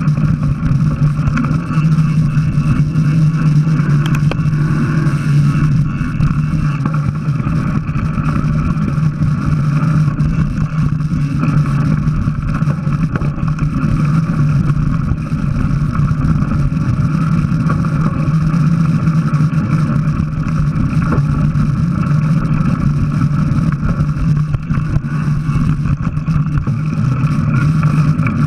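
Steady muffled drone of a mountain bike rolling along a dirt singletrack, picked up by a camera mounted on the rider or bike: tyre and wind noise with a constant low hum.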